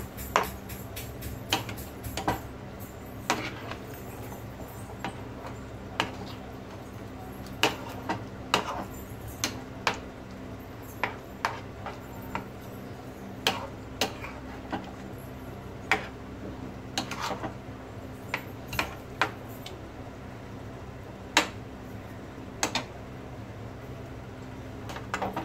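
A perforated steel spatula stirring thick gravy in a nonstick pan, knocking and scraping against the pan with sharp clinks at irregular intervals, roughly one a second. A steady low hum runs underneath.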